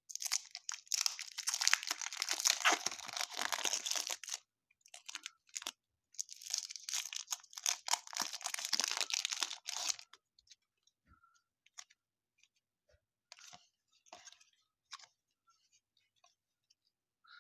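Baseball card pack wrapper being torn open and crinkled in two long crackly stretches of about four seconds each, followed by a few light scattered clicks.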